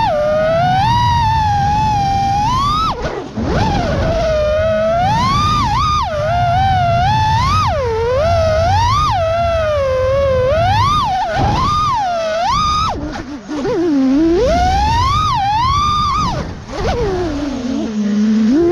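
A 6S FPV freestyle quadcopter's brushless motors and propellers, heard from its onboard camera: a whine that swoops up and down in pitch with the throttle. It drops out briefly a few times and sinks to a low pitch near the end before climbing again, with a low rush of wind underneath.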